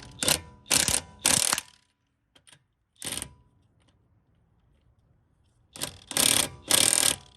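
Socket ratchet clicking in short strokes as wheel lug nuts are run down and tightened: three quick bursts at the start, one a little later, and three more near the end.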